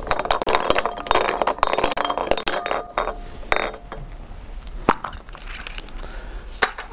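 Hands mixing draw balls in a glass bowl: a dense run of clinks and rattles against the glass that thins out after about three seconds, with a couple of sharper clicks later on.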